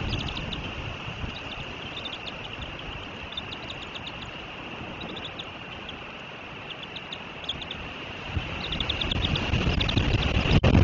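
Wind buffeting the nest camera's microphone, easing through the middle and gusting again near the end, with several quick runs of short, high-pitched bird chirps over it.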